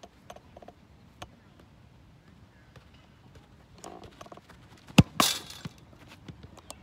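A soccer ball struck hard with the laces gives one sharp, loud thump about five seconds in, followed at once by the ball hitting a chain-link fence with a brief rattle. Before the shot come light footsteps and dribbling touches on artificial turf.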